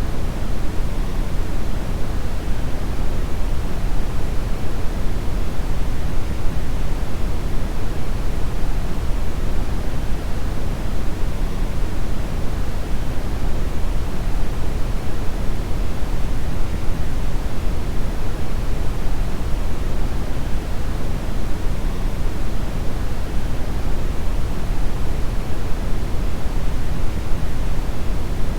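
Brown noise: a steady, deep rushing hiss, strongest in the low end and thinning toward the top, with no changes or events.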